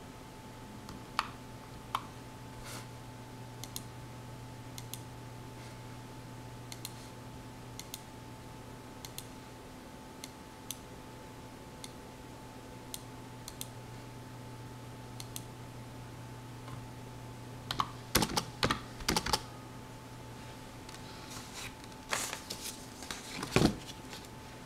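Computer keyboard keys pressed one at a time, roughly once a second, then two short bursts of faster, louder typing in the last third. A steady low hum runs underneath.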